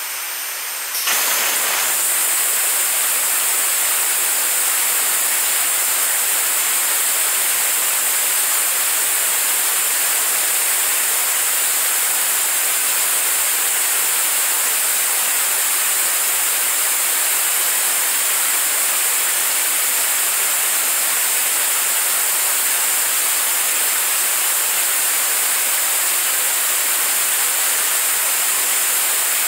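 Liquid-propellant staged-combustion rocket engine firing on a test stand: a loud, steady rushing noise of the exhaust. It gets louder about a second in as the engine comes up to full burn, then holds level.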